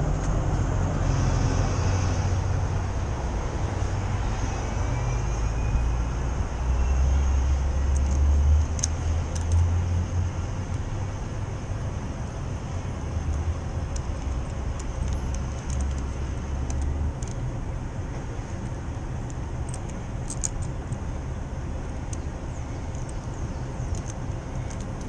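Steady low rumble of outdoor street traffic, with scattered light clicks from about eight seconds in.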